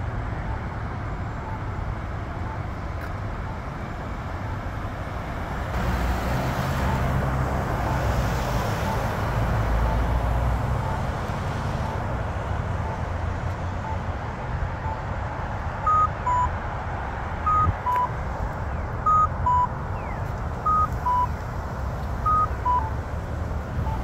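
Accessible pedestrian signal push button: a faint locator tick about once a second, then a walk tone about two-thirds through. The walk tone is a cuckoo, a higher note followed by a lower one, sounding five times about every second and a half, over steady passing traffic. The cuckoo is the north-south walk tone; on this eastbound crossing a chirp is supposed to sound instead.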